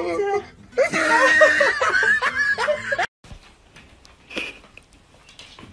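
A person laughing and giggling in a high voice for about two seconds. It cuts off suddenly, leaving quiet room sound with a faint tap.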